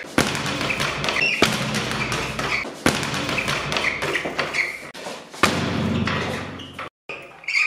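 Speed bag on a wall-mounted platform hit with hard left hooks: a sharp thump about every second and a half, four or five times.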